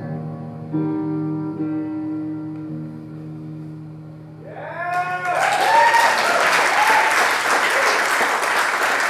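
Electric guitar playing its last notes of the song, which ring out and fade. About halfway through, the audience breaks into loud applause with cheering and whoops.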